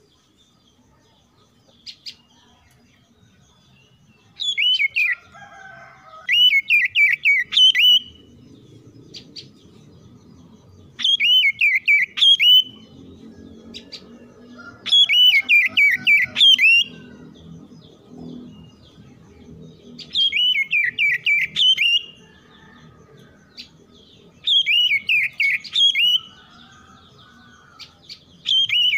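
Oriental magpie-robin singing: loud bouts of rapid, looping whistled notes, each bout one to two seconds long and repeated every few seconds.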